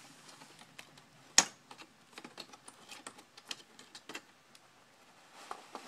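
Light clicks and taps of small plastic laptop parts being handled during disassembly, with one sharper, louder click about a second and a half in.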